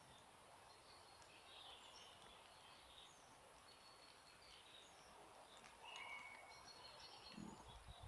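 Faint songbirds chirping and calling in a spring forest, short scattered calls over a quiet background, with a couple of low thumps near the end.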